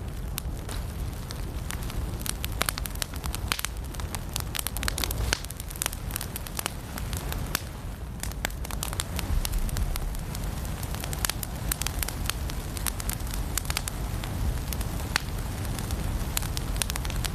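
Firewood burning in a fireplace, with frequent irregular sharp crackles and pops over a low, steady rumble of the flames.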